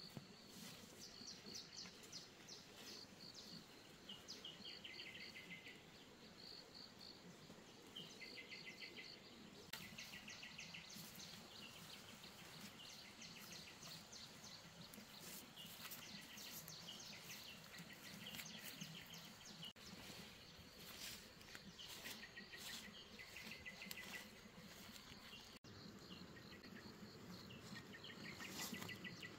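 Faint outdoor ambience of chirping insects, their short high trills repeating every second or two, with occasional soft rustling and handling noises.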